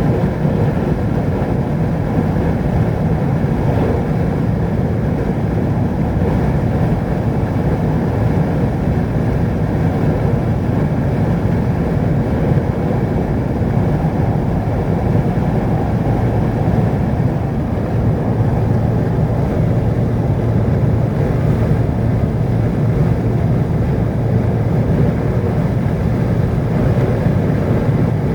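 Steady low rumble of a vehicle driving along a road, engine and tyre noise running evenly without change.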